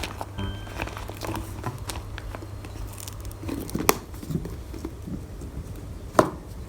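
Plastic packaging crinkling and rustling as it is handled, with two sharper taps, one a little past the middle and one near the end.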